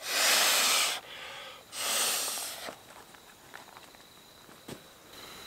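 Two long breaths blown into the valve of a Sea to Summit Aeros inflatable pillow to inflate it, each a rushing hiss of about a second with a short pause between. Faint ticks follow, and a thin steady high insect tone starts near the end.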